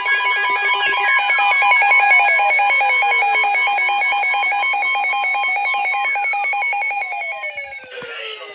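Electronic emergency-alert alarm: several steady beeping tones sound together over a rapid, even pulsing, with two long falling whistle-like glides. The whole alarm drops away near the end.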